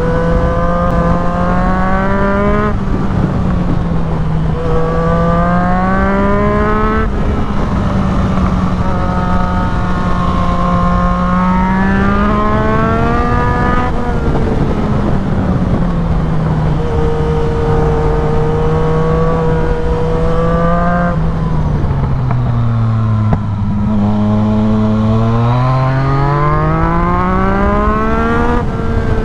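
Yamaha MT-09's three-cylinder engine through a full aftermarket exhaust, pulling hard through the gears. The pitch climbs and drops sharply at each quickshifted upshift, several times. About three quarters through it falls away low as the bike slows, then climbs again.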